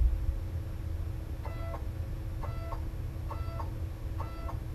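Kudo3D Titan 1 resin printer's Z-axis motor making short moves of the build platform: four brief whines with sharp starts and stops, about a second apart, beginning about a second and a half in, over a steady low hum.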